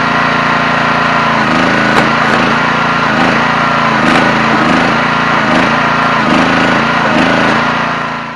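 Engine of a 37-ton hydraulic log splitter running steadily as the ram pushes an ash round into the six-way wedge. About one and a half seconds in, its note starts to pulse slowly as the engine works under load. It fades out near the end.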